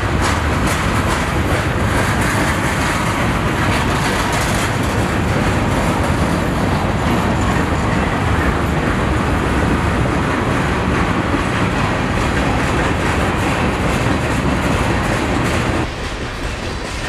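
Loaded freight cars carrying trash containers rolling past close by: a steady rumble of steel wheels on rail, with clickety-clack over the joints. About a second before the end the sound drops abruptly in level.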